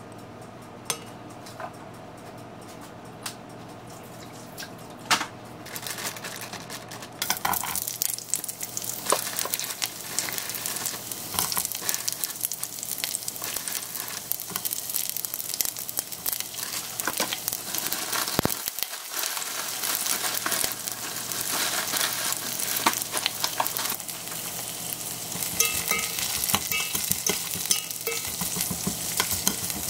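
Sliced onion sizzling and frying in hot toasted sesame oil in a large pot, stirred with a spatula. A few light clicks come first, and the loud crackling sizzle starts about six seconds in, when the onion goes into the hot oil.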